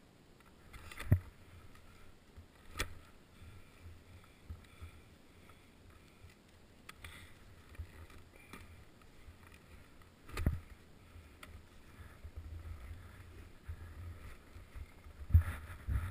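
Skis and ski poles shuffling and knocking in snow as a skier shifts position. A few sharp knocks stand out, the loudest about a second in and near the end, over a low rumble that thickens toward the end.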